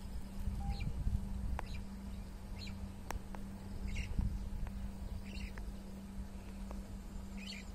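A bird calling with short high chirps, repeated every second or two, over a steady low rumble.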